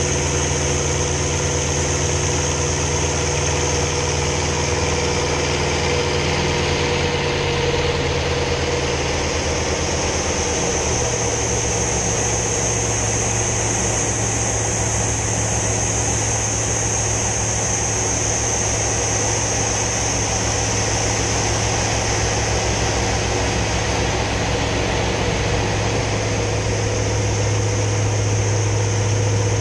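Hawker Sea Fury T20's Bristol Centaurus radial engine running steadily in flight, heard from inside the cockpit, with a steady high hiss over it. The engine note changes about ten seconds in, then holds steady.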